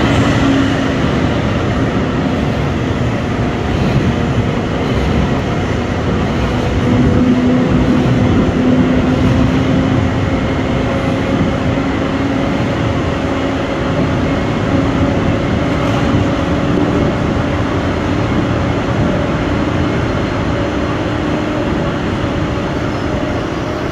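KTX high-speed train running on the track: a loud, steady rumble of wheels on rail and rushing air, with faint hums underneath that drift slightly in pitch.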